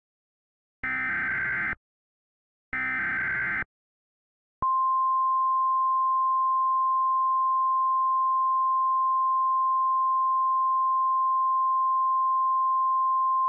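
Emergency Alert System SAME header: two screechy digital data bursts of about a second each, the last two of a set of three, with a brief gap between them. About four and a half seconds in, a single steady tone near 1 kHz starts and holds, the weather-radio warning alarm tone that comes before the spoken alert.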